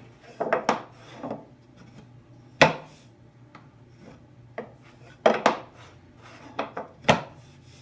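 Irregular knocks and scrapes of a removable insert being handled in a shop-built drill press table: lifted out, slid and set back into its opening, about nine sharp knocks.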